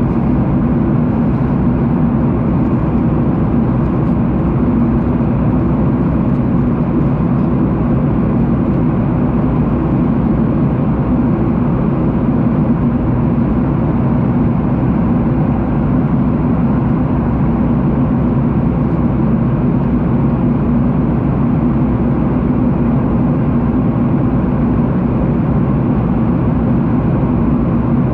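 Steady roar of an airliner's jet engines and rushing air, heard inside the passenger cabin.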